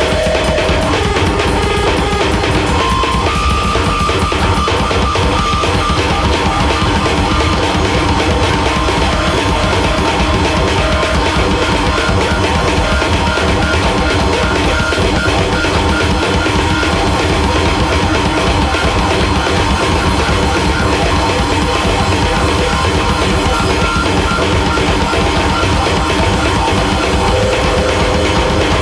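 Loud, dense noise rock from a drum-and-bass duo: a drum kit hit hard and fast under distorted bass guitar. A few held high notes ring over it.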